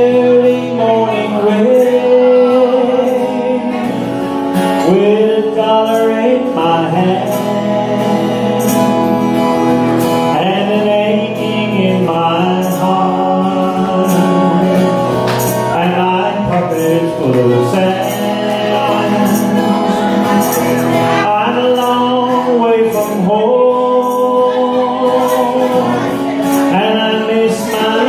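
A man singing a ballad, accompanied by accordion and strummed acoustic guitar.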